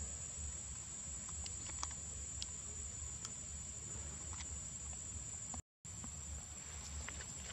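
Steady outdoor background of a low hum with a thin, steady high insect tone over it, and a few faint scattered ticks; the sound cuts out completely for a moment near the end.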